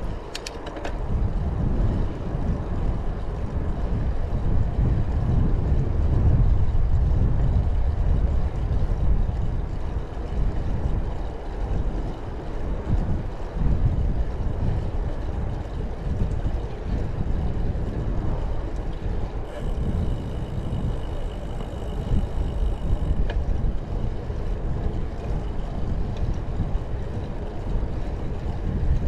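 Wind buffeting the microphone on a moving bicycle: a loud, uneven low rumble and rush that rises and falls throughout.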